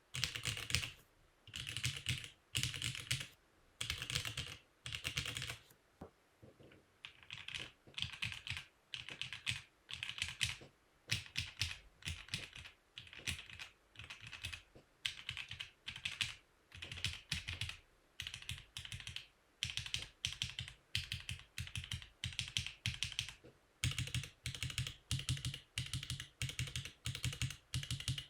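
Mechanical keyboard typed on in short bursts of rapid keystrokes, about one burst a second with brief pauses between.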